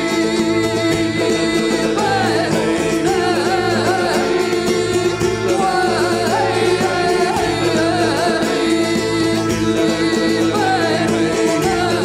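Balkan folk music: a voice sings a winding melody over steady held tones, plucked tambura and a low pulsing beat.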